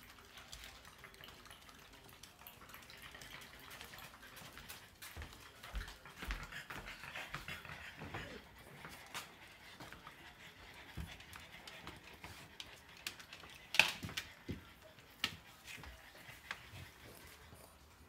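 French bulldog panting hard from overheating, with scattered light clicks and knocks and one sharp knock about fourteen seconds in.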